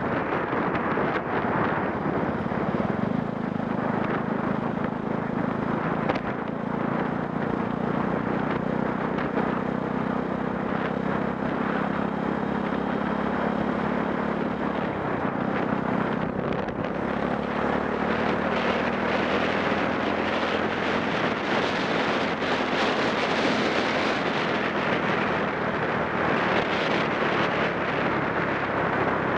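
Yamaha YZF-R125 motorcycle's single-cylinder four-stroke engine, big-bore kitted to about 180 cc and fitted with an aftermarket LeoVince exhaust, running under way with wind rushing over the microphone. The engine note drops about halfway through, and the wind rush grows stronger near the end.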